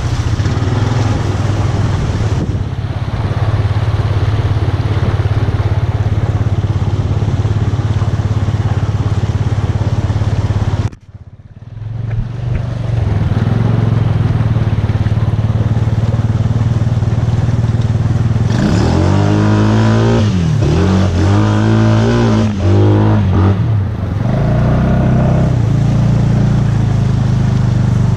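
Honda Foreman 500 ATV's single-cylinder engine running steadily, with a brief gap about eleven seconds in. Later it is revved up and down several times in quick succession before settling back to a steady run.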